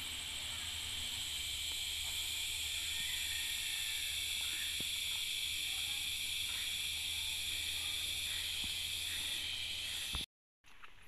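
A chorus of forest insects droning steadily in high, even bands, with a fine rapid pulsing in the highest band, over a low rumble and a few faint ticks. The drone cuts off suddenly near the end.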